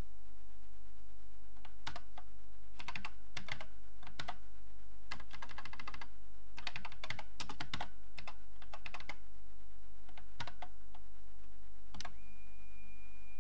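Typing on an Acorn Electron's keyboard, keys clacking in short runs, then one sharp key press about twelve seconds in as the LOAD command is entered. Just after it a steady high tone begins, the cassette tape's leader tone as the computer searches the tape for the program.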